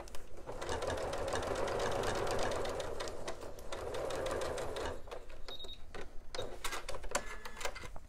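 Janome electric sewing machine stitching a seam steadily through layered fabric and batting, stopping about five seconds in. A few light clicks follow.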